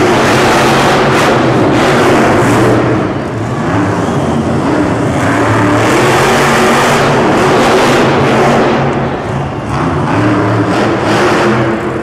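Monster truck engine running loud and revving, its pitch climbing and falling back several times.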